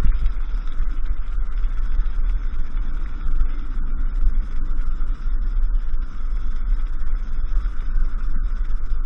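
Steady low rumble of wind buffeting and a kite buggy rolling over firm beach sand, with a faint steady hum and scattered small ticks throughout.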